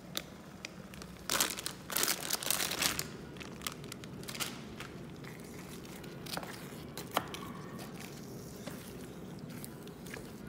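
Plastic zip-top bag crinkling loudly for a second or two as frozen butternut cubes are tipped out of it into a pot, followed by a wooden spoon stirring the chunky sauce with a few light knocks.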